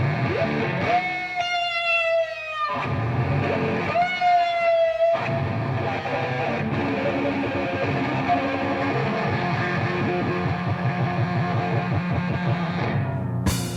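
Distorted electric guitar playing an instrumental rock passage: two long held notes, one about a second in and another about four seconds in, then busier playing. The sound changes abruptly near the end.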